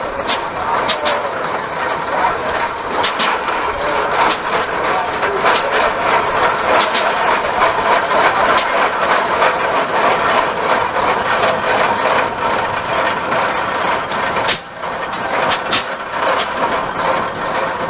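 Early Hart-Parr tractor's engine running slowly, its exhaust firing in sharp pops at irregular gaps, over a steady dense noise.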